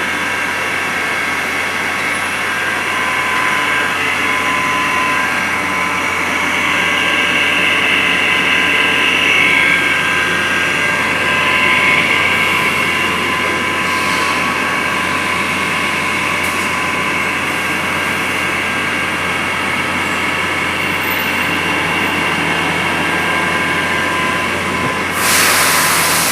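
CNC milling machine running steadily, a spindle whine with several steady high tones over mechanical noise. Near the end a loud hiss sets in.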